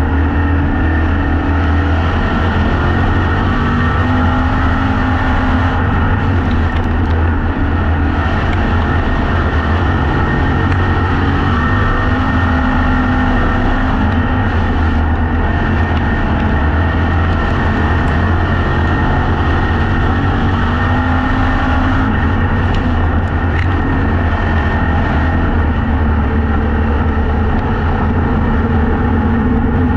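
Factory Stock dirt-track race car's engine running hard at racing speed, heard from inside the cockpit. Its pitch rises and falls as the throttle goes on and off around the oval.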